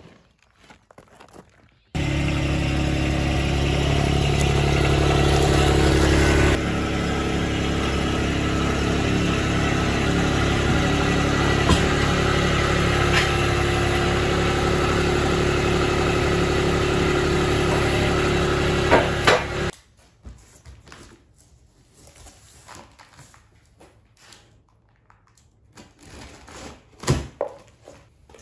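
Forklift engine running steadily. It starts suddenly about two seconds in, its low end drops about six seconds in, and it stops suddenly near the end, leaving only a few light knocks.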